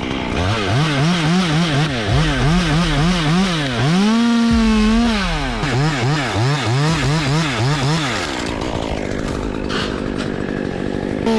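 Chainsaw engine revved in quick repeated blips, about two or three a second. About four seconds in it is held at high revs for a second, then the blipping resumes. In the last few seconds it settles into a rougher, steadier sound.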